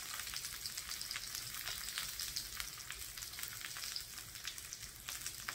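Pork belly slices and kimchi sizzling in a ridged grill pan: a steady frying hiss with frequent small crackling pops.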